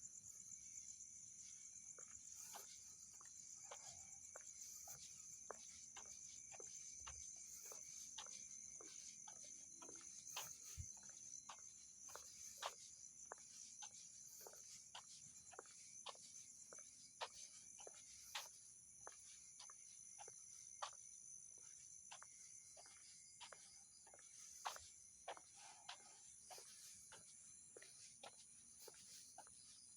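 Faint, steady high-pitched trilling of night insects such as crickets, with irregular sharp clicks or ticks about one to three a second, more of them from about ten seconds in.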